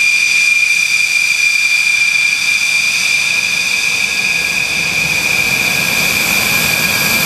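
Twin Snecma M88 jet engines of a two-seat Dassault Rafale whining at taxi power as the fighter taxis past: a loud, steady high-pitched turbine whine, with a low rumble building in the second half.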